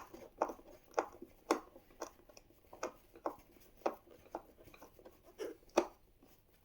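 Screwdriver backing a screw out of a plastic car seat shell: a series of short sharp clicks, about two a second, that stop about a second before the end.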